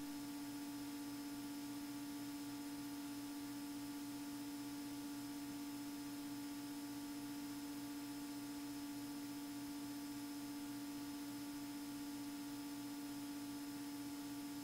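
Faint, steady electrical hum with one constant tone and a faint regular pulsing beneath it, the background of an aircraft's recorded intercom audio between spoken words.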